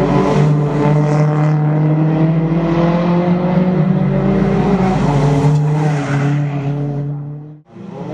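Toyota Altis race car engines running hard at a steady high pitch, shifting pitch a couple of times. The sound cuts out sharply for a moment near the end.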